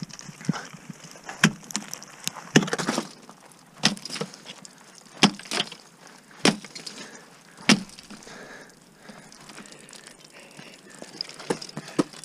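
Ice tool picks and crampon front points striking into wet waterfall ice: a series of sharp chops and cracks, about a dozen, irregularly spaced and some in quick pairs.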